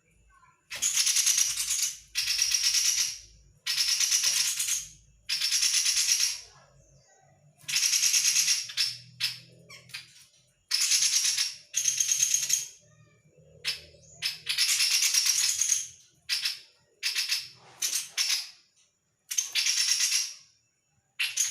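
Chestnut-rumped babbler giving a series of harsh rattling chatters, each about a second long with short gaps, with a few shorter bursts mixed in.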